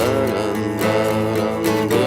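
Acoustic guitar strummed in a steady rhythm, playing the chords of a song.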